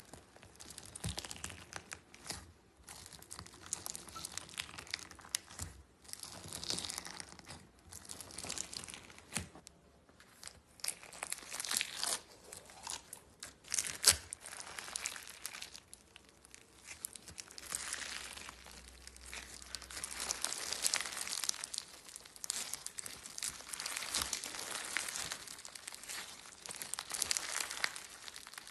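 Slime being squeezed and stretched by hand, giving irregular crackling and popping that comes in surges.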